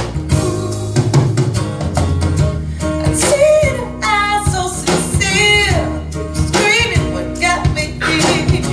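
A song with a singer and guitar played back over Wilson Audio Sabrina floor-standing loudspeakers in a listening room.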